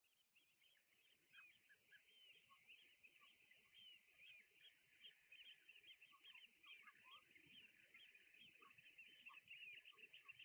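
Faint chorus of a flock of birds calling: many short, overlapping high chirping calls, with scattered lower calls among them, growing slightly louder.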